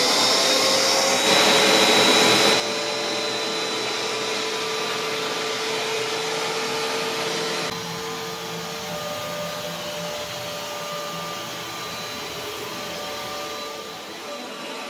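Hoover Dual Spin Pet carpet cleaner running, its motor loud and steady with a constant whine over a dense rush of suction noise. The level drops sharply twice, about two and a half and nearly eight seconds in.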